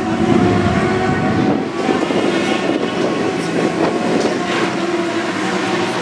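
Racing sidecar engines running at steady, raised revs in the pit lane, a continuous loud drone with held pitches that shift slightly as the revs change, briefly dipping a little under two seconds in.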